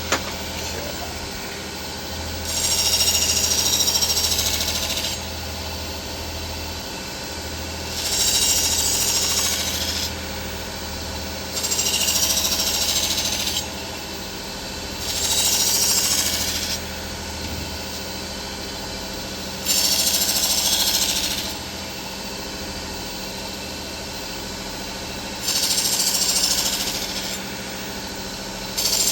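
Vevor 1x30 belt grinder running steadily with a leather honing belt loaded with 3-micron aluminum oxide compound. A knife edge is drawn across the moving belt seven times, each pass a louder hiss of about two seconds, with a few seconds of plain motor hum between passes.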